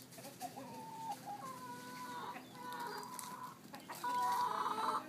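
A flock of chickens clucking and calling in a string of short pitched calls, with a louder, drawn-out call near the end.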